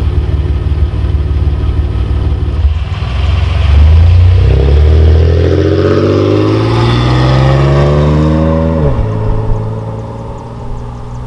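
Exhaust of a 1997 Camaro's 3.8L Series II V6 fitted with an aftermarket muffler: steady running, then a hard acceleration with the engine note climbing for about five seconds before dropping sharply at a gear change, then settling.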